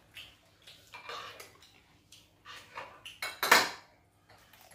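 Spoons clinking and scraping against bowls and plates in a short run of irregular clatters, as garri is spooned up and fish is picked apart; the loudest clatter comes about three and a half seconds in.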